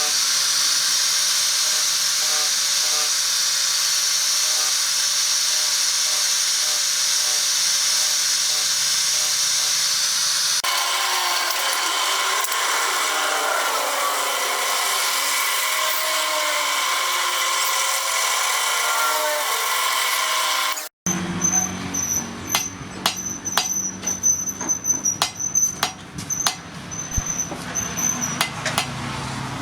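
Electric power tool, such as a grinder, running steadily against the steel of a machete blade. It changes character about ten seconds in. After a break, a run of sharp, irregular metallic strikes and taps follows.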